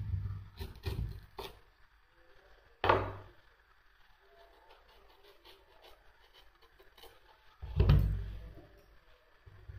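A few scattered knocks and thuds, the loudest about three seconds in and again near eight seconds, with quiet in between.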